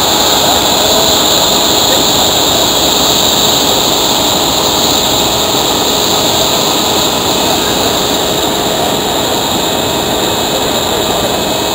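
Large mining belt conveyor machinery running: a loud, steady roar with a faint steady whine.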